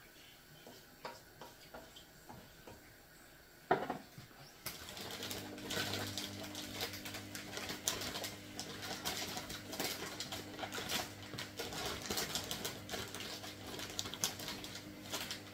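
Seasoned water and sauce in a wok sizzling and bubbling on a gas hob: a dense, steady crackle that starts about five seconds in, just after a sharp knock, over a low steady hum.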